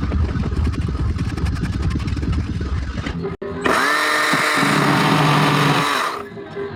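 A power tool running: about three seconds of rumbling, rapidly pulsing motor noise, then a brief break and a steadier, pitched run that dips and then holds.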